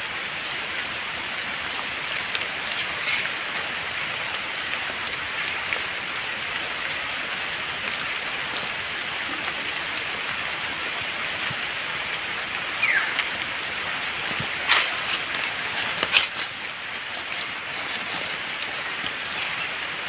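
Steady hiss of light rain falling on leaves, with a few faint short chirps.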